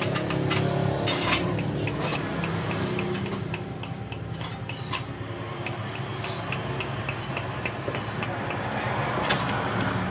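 Small hammer tapping on steel in a quick, uneven series of light metallic clinks, with one louder strike near the end. The hammering re-forms the crimped lip of a Kawasaki Ninja 250 rear monoshock part after a seal change.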